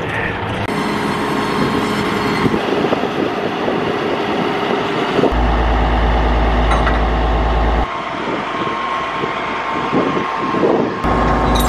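A crane truck's engine running steadily while its truck-mounted knuckle-boom crane lifts a steel shipping container, with a low rumble of wind on the microphone in a couple of stretches.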